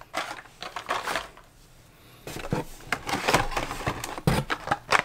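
Blister-carded Hot Wheels die-cast cars being handled and shuffled: irregular plastic clicks, taps and crinkles, with a short lull about a second and a half in.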